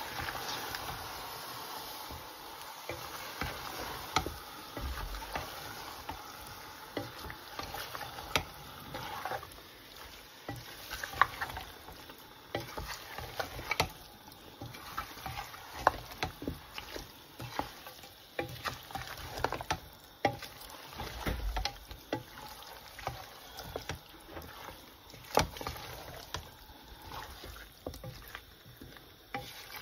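Wooden spatula stirring chunks of beef and sliced onions in a stainless steel pot, with irregular knocks and scrapes against the pot's side.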